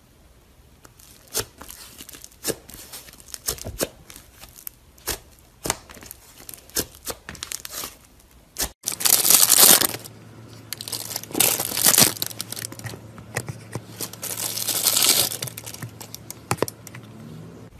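Thick slime being squished and stretched by hand, giving a string of sharp clicks and pops. About nine seconds in, a different slime takes over: three longer, louder crackling, tearing stretches as it is pressed and pulled apart.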